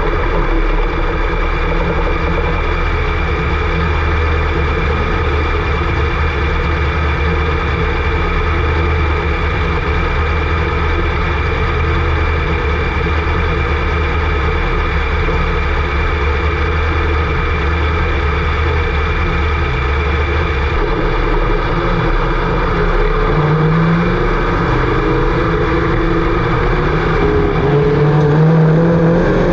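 Engines running steadily, with an engine revving up a couple of times near the end.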